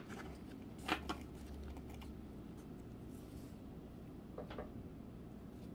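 Playing cards being handled and moved through a new deck by hand, making a few soft clicks and snaps; the sharpest comes about a second in.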